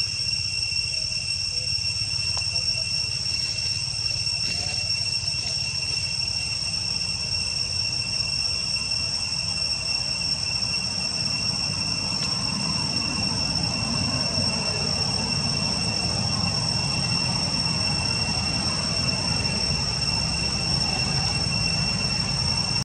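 Forest ambience: insects droning in a steady, high, unbroken tone over a low rumble that grows louder about halfway through.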